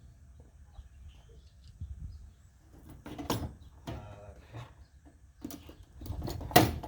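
Metal hand tools being handled on a workbench: a few scattered knocks and clinks, the loudest near the end, with a short pitched squeak in the middle.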